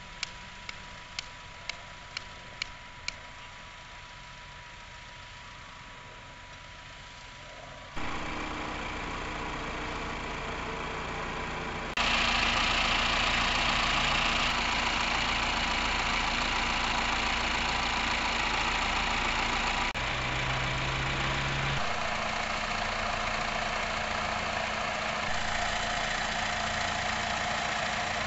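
A hammer taps a marker stake into the ground, about two strikes a second for the first three seconds. From about eight seconds in, farm tractor diesel engines run steadily, growing louder a few seconds later.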